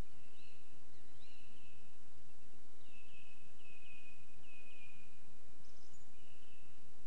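Faint early dawn-chorus birdsong: a bird repeating short, similar phrases about once a second, with a few higher notes from another bird, over a steady background hiss.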